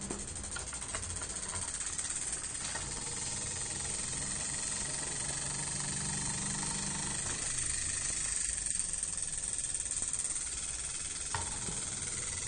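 Gakken electromagnet engine model, a small battery-driven Froment-type motor, running: rapid clicking from its coils and reed switches blurs into a steady whirring hiss that grows louder over the first couple of seconds, then holds.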